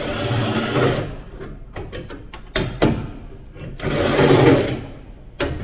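Handheld power tool run in two short bursts on car body metal, with sharp metallic knocks and clicks in between.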